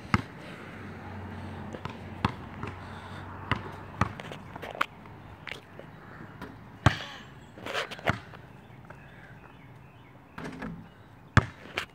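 Basketball bouncing on an asphalt driveway and hitting the hoop as shots are taken: separate sharp thuds at an uneven pace, the loudest a little over halfway through with a short ring after it, and another shortly before the end as a shot just misses.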